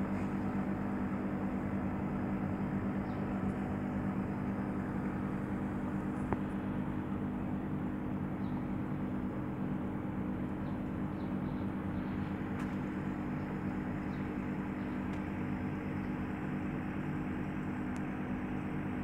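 Aquarium pump humming steadily, with one faint click about six seconds in.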